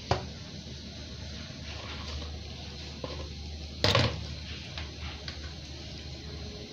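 Purple plastic colander full of soaked, wet editan leaves being handled as they drain: a sharp click right at the start and a louder knock about four seconds in, with a few small ticks between.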